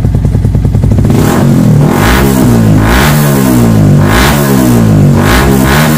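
Yamaha R15 v2's single-cylinder four-stroke engine running loud through an aftermarket Akrapovic exhaust. It pulses steadily at first, then from about a second in it is blipped repeatedly, the revs rising and falling roughly once a second.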